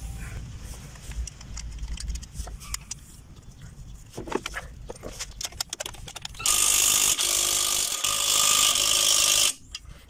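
Hand work on a car's steering knuckle assembly: scattered light metal clicks and knocks of tools and parts. About six seconds in, a tool runs loud and steady for about three seconds as the bolts are driven home, then stops.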